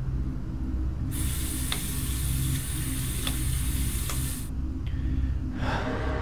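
Tap water running from a faucet into a stainless-steel sink, starting about a second in and cutting off after about three and a half seconds, with a few sharp ticks in the stream. A low steady hum sounds underneath throughout.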